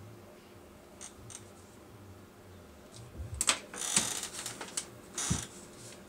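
Quiet room tone, then from about three seconds in a cluster of clicks and rustling as sheets of paper are handled and shuffled on a desk, with another short rustle a little over a second later.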